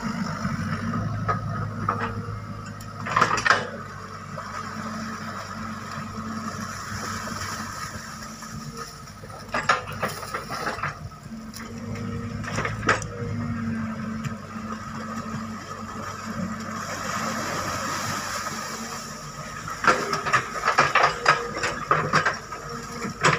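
Sany SY55C mini excavator at work, its diesel engine running steadily under hydraulic load. Sharp metallic knocks and clanks from the bucket and tracks come about three seconds in, around ten and thirteen seconds, and in a quick run of several near the end.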